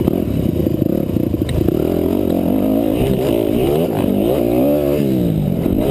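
250cc four-stroke motocross bike engine, heard from on the bike, pulling hard along the dirt track. From about halfway the revs rise and fall again and again as the throttle is rolled on and off.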